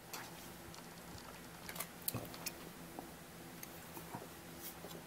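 Faint handling noise: a few light clicks and soft rustles as a model kit's decal sheet and bagged plastic parts are moved about on the workbench.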